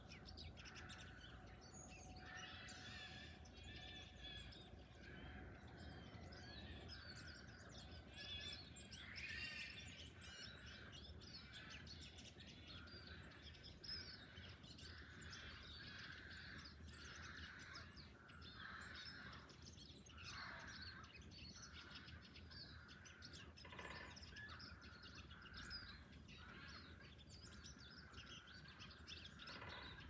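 Small songbirds chirping and calling faintly, many short chirps overlapping one another.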